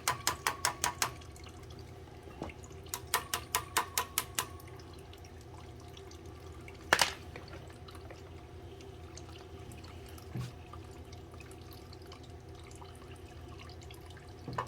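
Oil burner running with a steady hum while air is bled from its oil pump: the bleed port spits air and oil in two quick runs of sharp spurts, about eight a second, in the first second and again around three to four seconds in. A single loud knock comes about seven seconds in.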